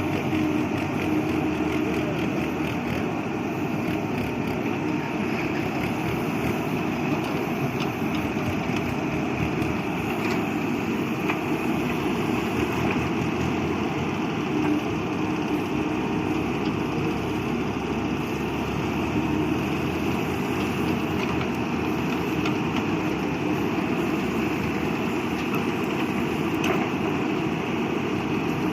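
Diesel engine of an ACE AX 124 backhoe loader running steadily at an even speed, with a faint constant hum.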